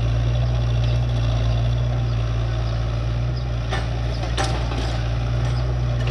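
Excavator's diesel engine running steadily, with a couple of short knocks about four seconds in.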